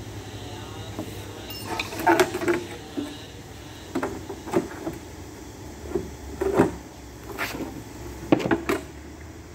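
Irregular knocks, clatters and scrapes as a bus side skirt panel is handled and fitted against the bodywork, in several short clusters.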